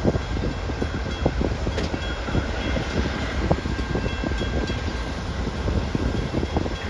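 Amtrak Superliner passenger cars rolling past, the wheels clacking and knocking over the rails, with a steady rumble and wind buffeting the microphone.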